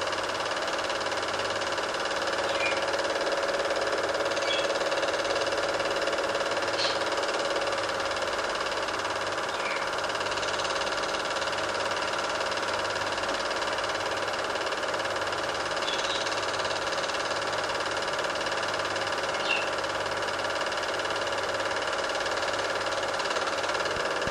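Super 8 film projector running: a steady mechanical whir with a few faint ticks.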